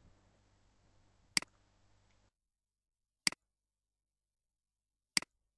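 Three computer mouse clicks about two seconds apart, each a sharp tick with a smaller tick right after it.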